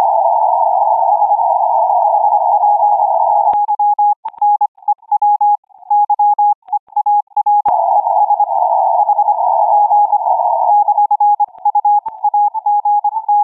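Morse code (CW) signal from a ham radio receiver, its keyed tone at first buried in narrow-band hiss. About three and a half seconds in, the RM Noise AI noise reduction is switched in and the dots and dashes come through clean with silence between them. The hiss returns around eight seconds in and is cleared again about three seconds later.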